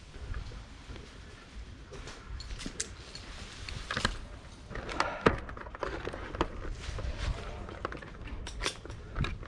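Footsteps and handling noise on a helmet-mounted camera as the wearer walks: scattered clicks and knocks, a few sharper ones about four and five seconds in, over a steady low rumble.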